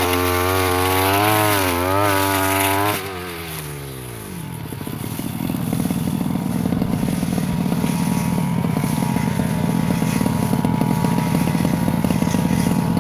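Brush cutter engine running at high revs, its pitch wavering under load. About three seconds in the throttle is released, the revs fall away, and it settles into a steady idle.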